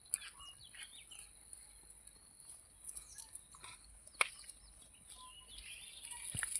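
Quiet rural outdoor ambience: a steady high hiss with a few faint bird chirps and occasional sharp clicks, the loudest about four seconds in.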